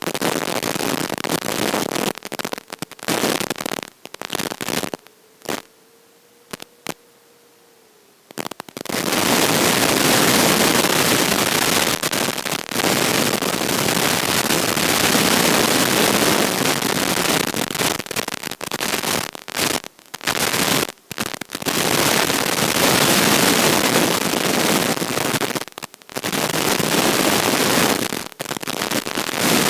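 Crackling radio static from an analog FPV video receiver, a loud even hiss that keeps dropping out and breaking up, going almost silent for a few seconds about five seconds in.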